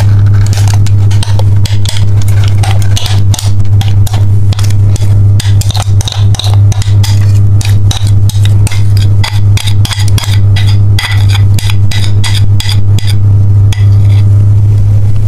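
Thick cheesecake batter poured from a glass bowl into a paper-lined cake tin, with a spatula scraping the bowl in many short clicks and scrapes. A loud steady low hum runs underneath.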